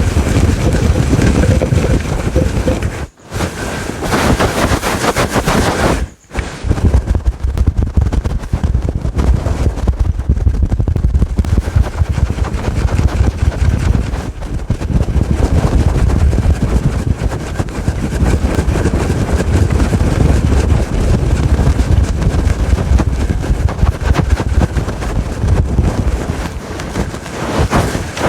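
Fast, aggressive scratching on a fluffy microphone windscreen, close to the mic: a loud, dense rustling crackle that stops briefly twice, about three and six seconds in.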